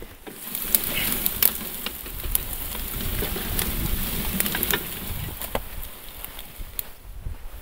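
Tall grass and brush crackling and rustling against a hand-towed rail bike as it is pulled along an overgrown track, with scattered sharp clicks. It dies down near the end.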